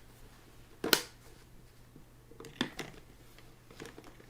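A single sharp click about a second in, followed by a few fainter clicks and taps: small objects being handled.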